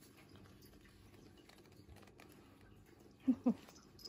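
Faint, scattered small clicks from small pet nail clippers trimming a kitten's claws, with handling sounds. About three seconds in come two short voiced sounds close together, the loudest thing here.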